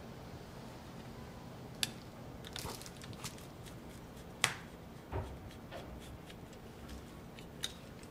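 A few scattered sharp clicks and taps, with one duller knock, from small tools and screws being handled on a laptop repair bench. A low steady hum runs underneath.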